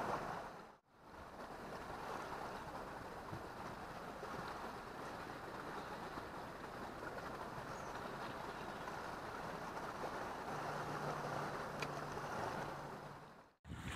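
Steady wash of sea surf on a rocky shore, an even hiss without a beat, broken by two short silent gaps at edits, about a second in and near the end. A faint low hum joins in for the last few seconds.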